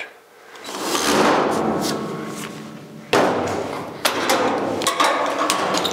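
Hand-tool work on a car's bare sheet-metal door post and body: a noisy rush with thumps and knocks of metal, the loudest starting suddenly a little past halfway.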